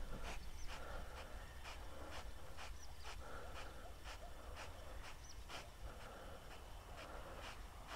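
Faint, soft rhythmic swishing, about two to three strokes a second, as a spinning rod is twitched and its reel cranked to retrieve a topwater lure.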